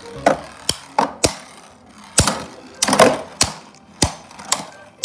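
Two Beyblade Burst spinning tops, Command Dragon D5 and Eclipse Genesis, battling in a plastic stadium: about a dozen sharp, irregular clacks as they collide.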